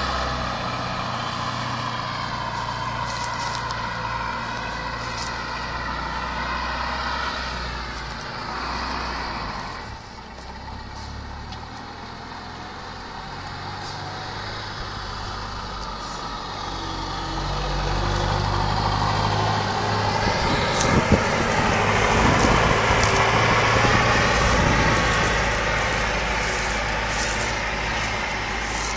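Eight-wheeled armoured vehicle driving over grass, its engine running with a high whine that wavers up and down in pitch. It grows louder about two-thirds of the way through as the vehicle comes closer.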